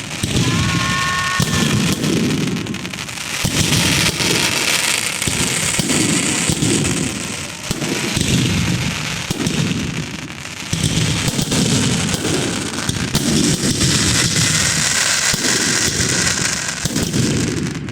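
Fireworks going off without a break: dense crackling and a rapid run of heavy bangs about every second, with a brief high whistle near the start.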